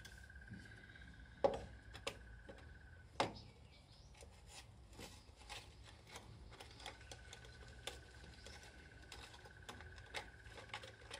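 Faint clicks and knocks of a hand tool working screws out of a plastic motorcycle headlight cowl, with two sharper knocks in the first few seconds.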